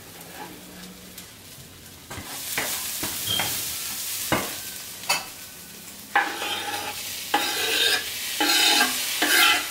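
Tomatoes and spices sizzling in hot oil in a frying pan while they are stirred, the sizzle rising about two seconds in. Sharp knocks of the stirring utensil against the pan, with louder scraping strokes toward the end.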